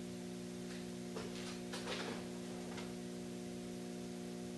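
Steady electrical hum from a CNC-converted Grizzly G0602 lathe standing idle, with a few faint light ticks in the first half.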